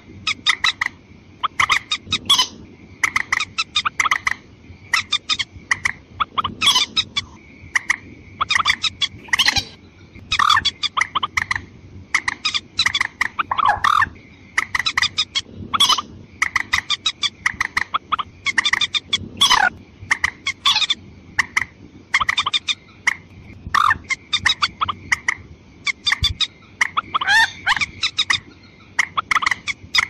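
Watercock lure call: loud bursts of rapid, sharp clucking notes, repeated every second or so, over a faint steady high tone.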